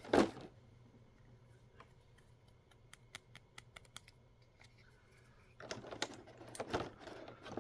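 Handling noise from small hard plastic miniature toy food pieces: a bump at the start, then a run of light clicks and taps as the pieces are picked over, and a rustle of plastic packaging near the end.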